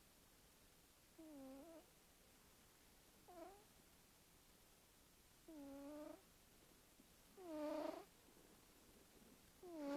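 Sleeping cat snoring with a squeaky pitched note on each breath, five in all about two seconds apart, getting louder; each note dips and then rises in pitch.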